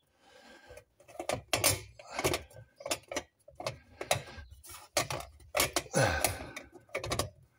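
Irregular metal clinks, knocks and scrapes as a fuel-pump locking ring is worked into place by hand around the breather pipe on top of a steel fuel tank.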